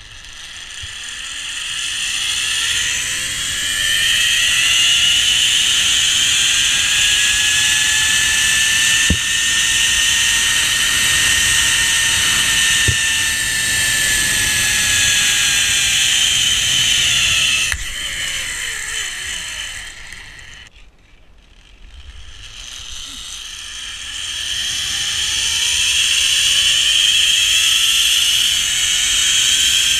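Zipline trolley pulleys running along a steel cable, with wind rushing past. Their whine rises in pitch as the rider picks up speed, then falls as it slows. It breaks off about two-thirds of the way through, then starts again and climbs on a new run.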